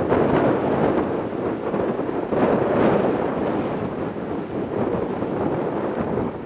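Jet engine noise of an Airbus A320-214 on takeoff, its CFM56 turbofans at high thrust: a loud, rough rush of noise that swells about two and a half seconds in, with wind buffeting the microphone.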